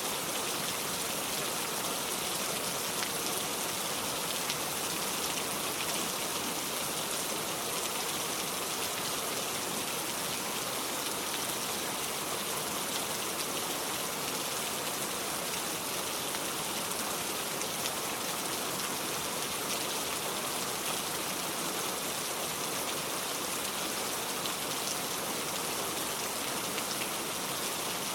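Heavy rain falling steadily, an even hiss with fine drop patter.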